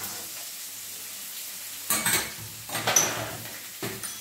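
Oil sizzling steadily in a nonstick pan as mustard seeds and soaked chana dal fry for a tempering. A silicone spatula stirs and scrapes the pan in short bursts at about two, three and four seconds in.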